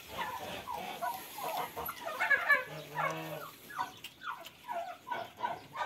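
A litter of puppies whimpering and squealing: many short, high, squeaky cries, several at once and mostly falling in pitch. They are loudest about two seconds in.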